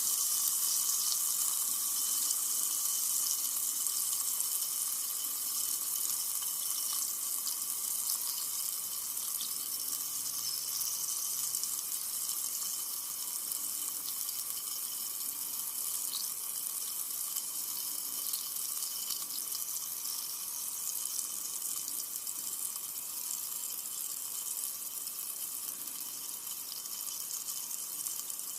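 Carbonated soda fizzing: a steady high hiss of tiny bubbles bursting, flecked with faint crackles, slowly dying down.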